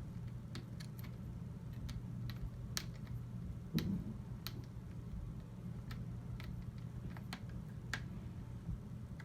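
Light, irregular clicks and taps of small metal rifle parts being handled during work on a GSG AK-47 .22 LR, over a steady low hum. A duller, louder knock comes about four seconds in.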